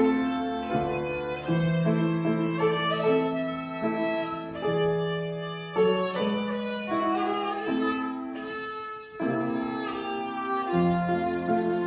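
Violin playing a bowed melody with upright piano accompaniment underneath, a student performance of a classical piece.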